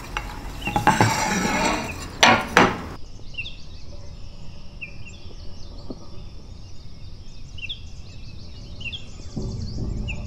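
Metal palette knives scraping and pressing handmade watercolour paint across a ceramic tile, a few strokes in the first seconds. After that, small birds chirping repeatedly in the background.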